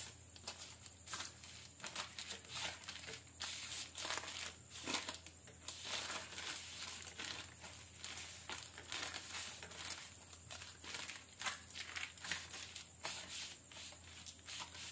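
Thin plastic sheet crinkling and rustling under the palms as a soft dough log is rolled back and forth inside it, in quick irregular strokes.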